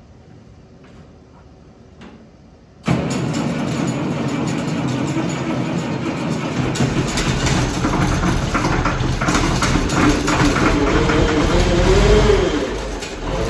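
International Harvester 1466's six-cylinder turbo-diesel making a cold start after sitting all winter: faint clicks, then the engine cranks and catches about three seconds in and runs loudly, its pitch rising near the end.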